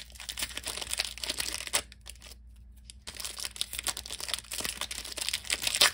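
Foil wrapper of a Pokémon card booster pack crinkling and tearing as hands work it open, with a brief pause about two seconds in before the crinkling resumes.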